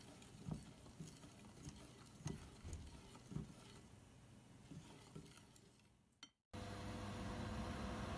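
A wire whisk stirring thin rice-flour batter in a bowl, faint, with soft irregular knocks of the whisk against the bowl that fade away. About six and a half seconds in, a steady hiss with a faint hum starts, from a stove heating a lidded wok of water for steaming.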